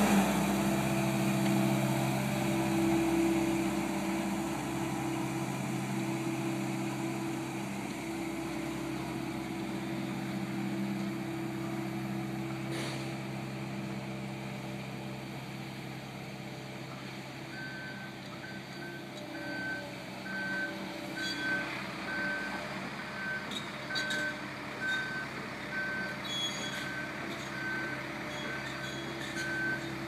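JCB 135 skid steer's diesel engine running steadily, growing fainter as the machine moves away. From a little past halfway its reversing alarm beeps about once a second, with scattered knocks and clatters near the end.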